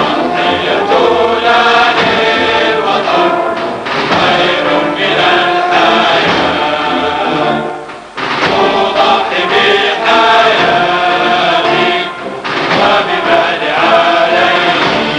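A choir singing with music, in long phrases broken by brief pauses about eight and twelve seconds in.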